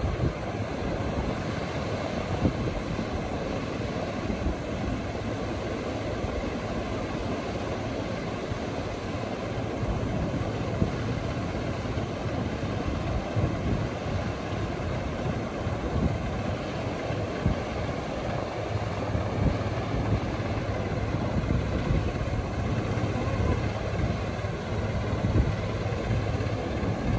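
Farm tractor's diesel engine running steadily at low revs, with waves breaking in the surf around it.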